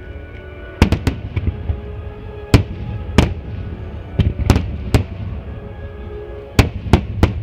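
Aerial firework shells bursting in a starmine barrage: about a dozen sharp booms, some in quick clusters, spaced a second or so apart. Under the booms is the music that plays with the display.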